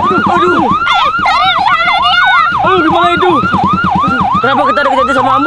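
Ambulance siren in a fast yelp, its pitch sweeping up and down about four times a second.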